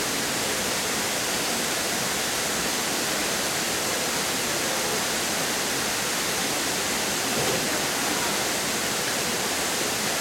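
Waterfall cascading over tiered rock ledges, a steady, even rush of falling water.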